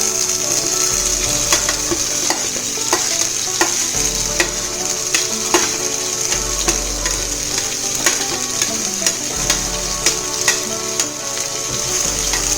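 Chopped onions sizzling in hot oil in a pressure cooker, the hiss starting suddenly as they go in. A spoon clicks and scrapes against the pot about once or twice a second as they are stirred.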